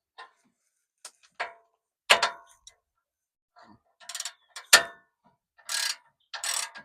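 Hand tools working on steel bumper parts as they are bolted together: scattered metal clicks and clanks, two of them loud, then short bursts of ratchet-like clicking near the end.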